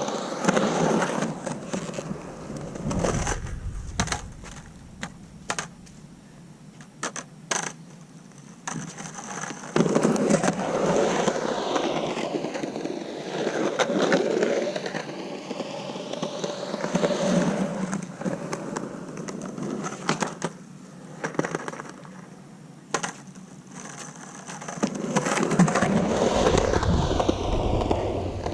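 Skateboard on hard 97a Santa Cruz Slime Balls urethane wheels rolling and carving around a concrete bowl. The rolling noise swells and fades in long waves, louder in some stretches than others, with a number of sharp clacks scattered through.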